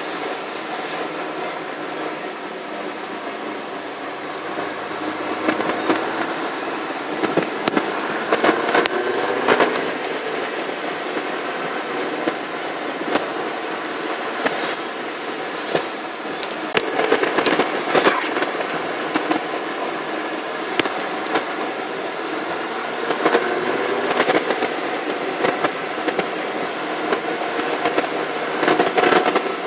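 Steady road and engine noise of vehicles travelling at highway speed, with frequent sharp rattling knocks and pitch that swells and fades several times.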